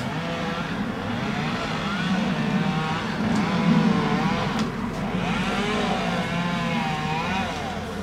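Two-stroke chainsaw cutting palm fronds, its pitch rising and falling over and over as it revs up and bogs down under the cut.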